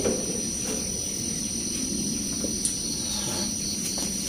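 Insects shrilling steadily at a high pitch in a rural outdoor chorus, with a single sharp click right at the start.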